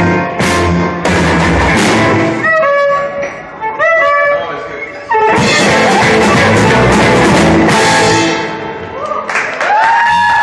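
Band music with guitar and drums, with a loud, dense stretch held for about three seconds in the middle.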